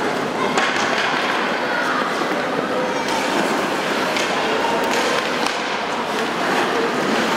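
Ice hockey sticks and puck clacking on the ice and boards, several sharp knocks spread over a few seconds, over a steady murmur of voices in a reverberant rink.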